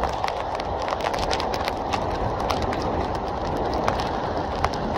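Rough sea rushing and splashing along the side of a fishing boat under way in a strong wind. Wind buffets the microphone throughout, with many short sharp crackles over the steady rush.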